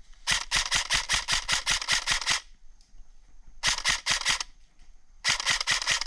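Airsoft gun firing on full auto in three rapid bursts of about ten shots a second: a long burst of about two seconds, a short one, and a third running on past the end.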